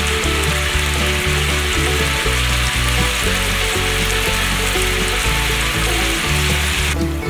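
Chili sauce sizzling and bubbling in a frying pan around simmering chicken feet, with background music with a steady beat underneath. The sizzle cuts off suddenly near the end.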